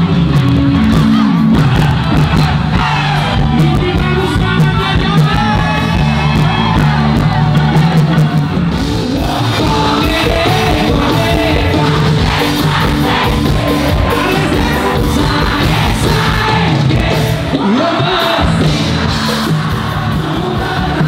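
Live band music with singing at a pop concert, a large crowd singing and shouting along.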